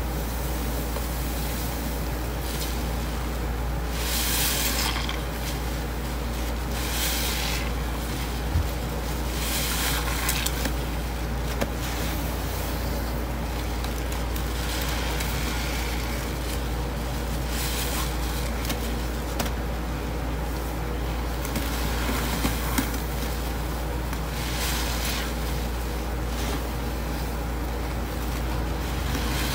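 Sponges soaked in thick blue detergent-powder paste being squeezed and kneaded by gloved hands, giving wet squishing and crumbling in bursts every few seconds, over a steady low hum.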